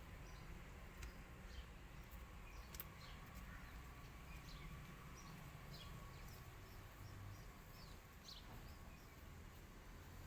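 Faint outdoor background: small birds chirping briefly and repeatedly over a low steady rumble.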